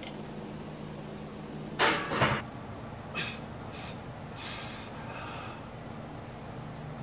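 Steady hum of gym fans and air handling, with two short metallic clatters from the loaded, banded barbell and its plates about two seconds in, followed by a few fainter short hissing sounds.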